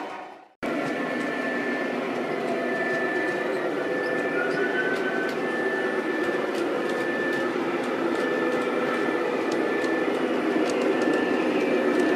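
O gauge model diesel locomotive and its train running along three-rail track, a steady rumble, with a few steady tones on top. The sound fades and drops out for about half a second at the start, then comes back.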